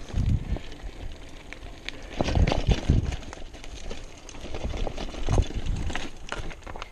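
Mountain bike clattering over a rough dirt trail: irregular knocks and rattles with tyre noise, and heavier thumps about two to three seconds in and again about five seconds in.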